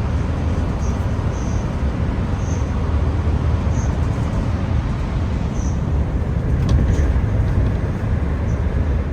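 Steady low rumble of a moving vehicle, with faint high chirps above it now and then.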